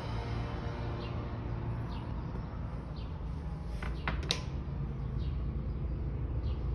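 Restroom background: a steady low hum with faint short chirps about once a second, and a few sharp clicks close together about four seconds in. No flush is heard.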